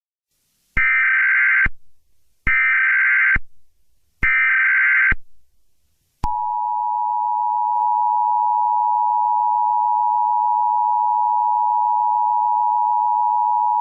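Emergency Alert System tones: three short bursts of SAME header data, each about a second long with a second's gap, then about six seconds in the steady two-tone EAS attention signal starts and holds. The sequence announces that an emergency alert message is about to follow.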